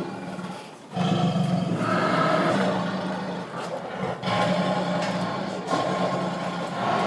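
Roaring of a computer-animated three-headed dinosaur, as a monster sound effect: two long roars, the first starting about a second in and the second just after the middle.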